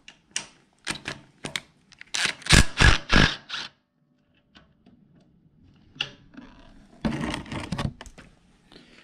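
Cordless impact driver hammering in short bursts as it loosens the oil drain bolt on a small engine's crankcase, with clicks and knocks of the tool and socket between. The loudest bursts come about two to four seconds in, with another about seven seconds in.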